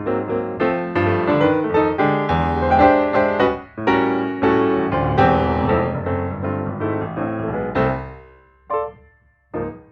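Background piano music, a run of quick notes that thins out near the end into two short single notes.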